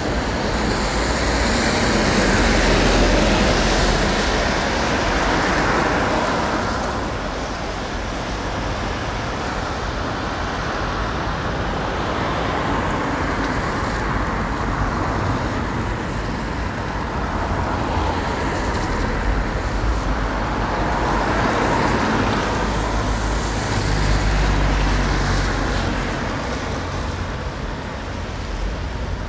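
Road traffic passing: cars and heavier vehicles going by one after another, the noise swelling and fading as each passes. It is loudest about three seconds in and again near the end, where a heavy vehicle's low engine rumble comes through.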